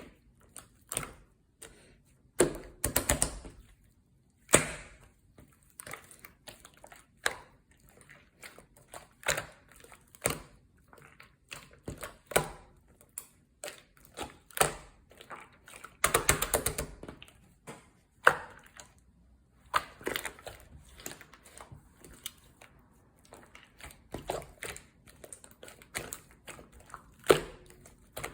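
Slime being squished and poked by hand: an irregular run of wet, sticky clicks and pops, with denser crackling bursts a few seconds in and about halfway.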